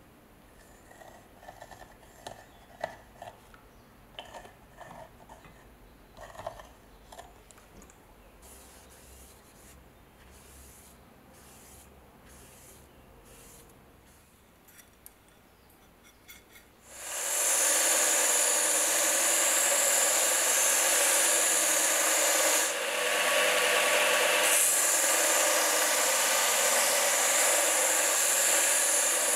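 Faint rubbing and small clicks of a cloth wiping oil along a steel knife blade, then about halfway through a bench belt sander comes in loud and runs steadily with a wooden block held against the belt.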